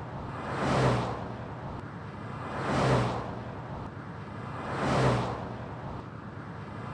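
Three whoosh transition sound effects, about two seconds apart, each swelling and fading like a vehicle passing by.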